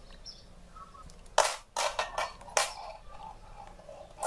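Pliers' metal jaws crimping a small metal sleeve onto a steel wire leader: a few sharp clicks, the loudest about a second and a half in and again about two and a half seconds in.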